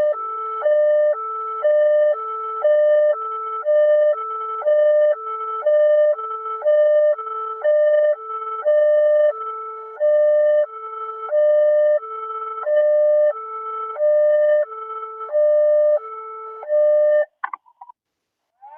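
Electronic alert tone of an Emergency Alert System-style warning, alternating between a lower and a higher set of steady tones about every half second, like a hi-lo siren. It cuts off about a second and a half before the end, with a short crackle and then silence.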